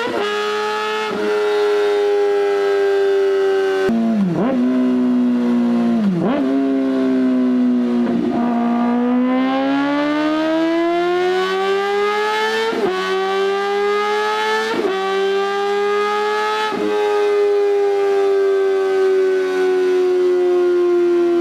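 Kawasaki ZX-4RR's 399cc inline-four through an SC-Project exhaust, running at high revs with a high-pitched wail. The pitch sinks, dips sharply twice, then climbs again, with brief breaks in the tone several times.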